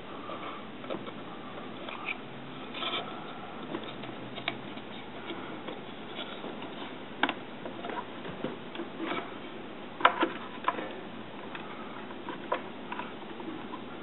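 Scattered light clicks and taps of hands handling the open metal case, wiring and circuit board of a grid-tie inverter, over a steady faint hiss. The sharpest clicks come about three, seven and ten seconds in.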